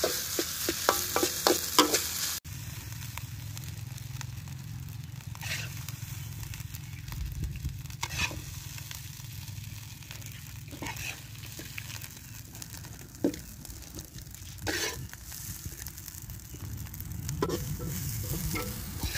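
Metal spatula scraping and tapping against a wok as fried rice is stirred, with faint sizzling, for the first couple of seconds. After an abrupt change, a ladle scrapes the wok now and then as the rice is scooped out, over a steady low rumble.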